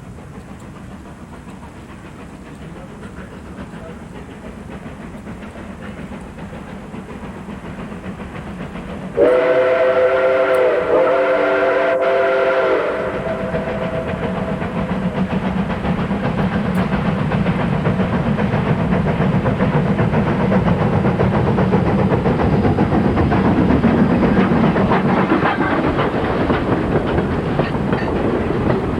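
N scale model steam passenger train approaching and running past, its running and rail noise growing steadily louder. About nine seconds in, a chime steam whistle sounds twice, a shorter blast then a longer one. The running noise peaks near the end and then eases.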